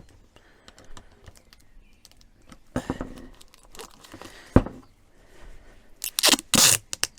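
Hands working on plastic hose parts: scattered rustles and small clicks, a sharp knock about halfway through, and two short, loud rasping noises near the end.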